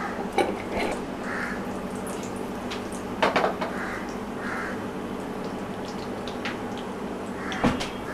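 Cashews and almonds sizzling steadily as they fry in hot ghee in a pan, with a few sharp knocks against the pan, the loudest about three seconds in and again near the end.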